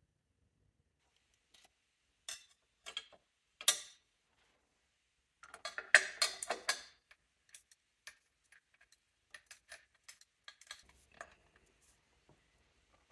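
Sharp metal clicks and knocks as a viscous fan clutch is handled and fitted onto the engine's pump hub, with a dense clatter about six seconds in. A run of light ratchet clicks follows as a socket ratchet works on the clutch.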